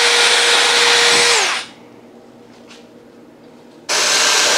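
Power drill with a small twist bit boring through the metal tonneau cover, running at a steady whine and winding down about a second and a half in. After a short lull, a cordless stick vacuum starts abruptly near the end with a steady high-pitched whine, sucking up the metal drill shavings.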